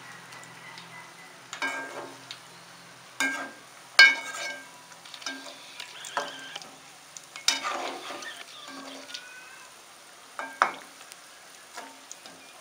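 Cabbage-onion bondas deep-frying in hot oil with a steady sizzle, while a perforated steel ladle stirs and turns them. The ladle scrapes and clinks against the steel pot several times, loudest about four seconds in.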